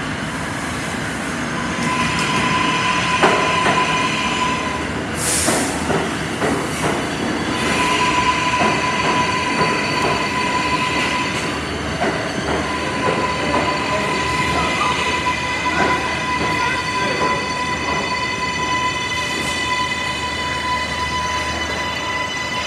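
R142A subway train pulling into an underground station, its steel wheels squealing in a long steady high-pitched squeal and knocking over the rail joints. There is a brief hiss about five seconds in.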